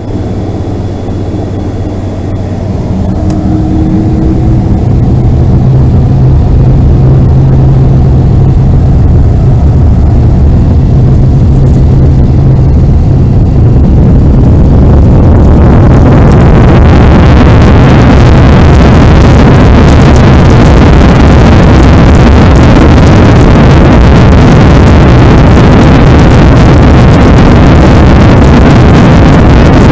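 Boeing 767-300 twin jet engines heard inside the passenger cabin at taxi and take-off. A steady low hum with a few held tones gives way, about halfway through, to a loud roar that builds as the engines spool up to take-off thrust, then holds.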